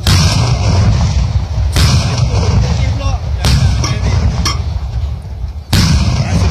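A row of homemade meriam cannons firing in turn: four deep booms about one and a half to two seconds apart, each followed by a long low rumble, with a smaller sharp crack between the third and fourth.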